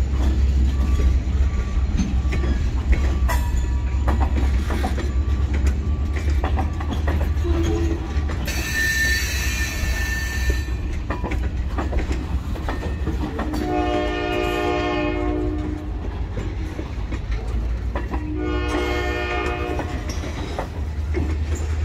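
Freight cars of a train shoved by SD40-2W locomotives rolling through a grade crossing: a steady low rumble with clicking wheels, and a brief high wheel squeal about nine seconds in. A locomotive horn sounds twice in the second half, a blast of about two seconds and then a shorter one.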